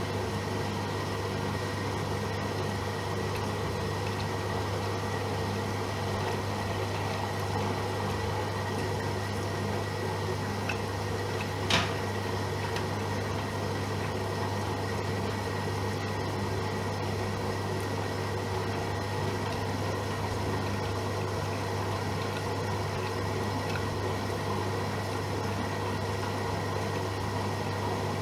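AEG Öko-Lavamat Lavalogic 1600 washing machine running steadily partway through a 60°C wash, a constant low hum, with a single sharp click about twelve seconds in.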